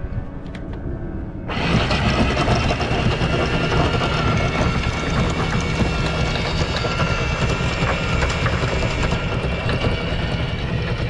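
Anchor windlass hauling in the anchor chain: a motor running with the chain rattling steadily over the bow, starting suddenly about one and a half seconds in.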